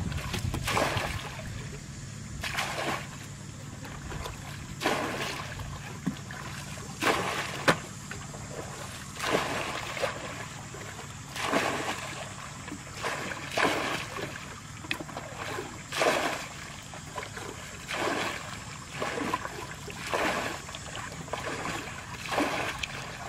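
Muddy water being scooped up in buckets and flung out in repeated splashes, one every second or two, as a shallow muddy pool is bailed out by hand.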